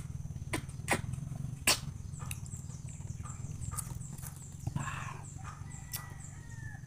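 Sharp wet clicks and smacks of a mouth sucking and chewing wild yellow passion fruit pulp and seeds, with a short slurp about five seconds in, over a steady low hum and a quick run of high, repeated chirps.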